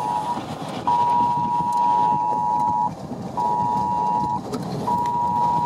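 Mobile phone's Wireless Emergency Alert tone: a harsh two-pitch tone sounding once long and twice short with brief gaps, over vehicle and wind noise.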